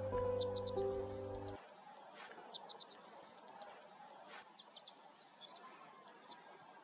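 A songbird sings the same short phrase three times: a quick run of high notes ending in a dense twitter. Piano music cuts off about a second and a half in.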